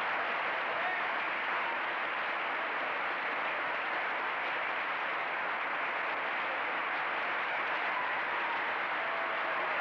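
A large audience applauding steadily, a dense, even clapping.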